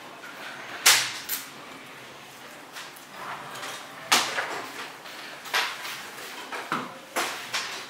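Scattered sharp clicks and knocks of tools, tape and small pieces of material being picked up and set down on a workbench, about seven in all, spread irregularly over a steady low room hiss.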